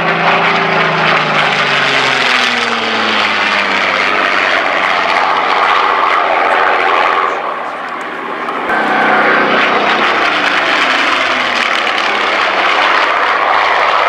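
A Supermarine Seafire XVII's Rolls-Royce Griffon piston engine heard in a flying display pass. The engine note drops in pitch as the aircraft goes by in the first few seconds, fades briefly a little past halfway, then comes back loud as it climbs through its manoeuvre.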